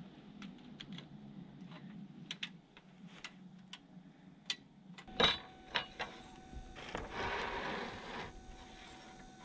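Light clicks and ticks of a steel tape measure being handled against a window frame. After about five seconds, a pencil scratches a line along a fibre-cement trim board for a little over a second.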